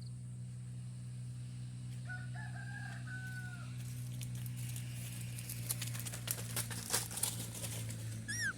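Birds calling over a steady low hum: one long drawn-out call about two seconds in, a run of sharp clicks in the second half, and a short high falling chirp near the end.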